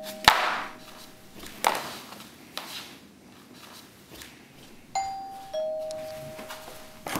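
Two-note ding-dong doorbell chime about five seconds in, a higher note then a lower one, each ringing on and fading. Before it, a sharp clack just after the start and a few footsteps on a wooden floor.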